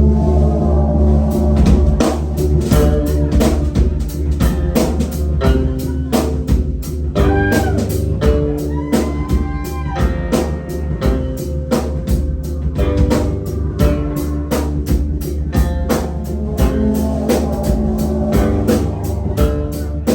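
Live band playing loud: a drum kit keeps a steady beat over a deep, sustained bass line, with other instruments on top and some gliding pitched sounds around the middle.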